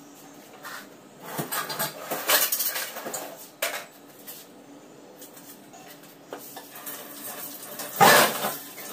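Dishes and steel utensils clattering and clinking on a kitchen counter and sink, in uneven bursts, with the loudest clatter near the end.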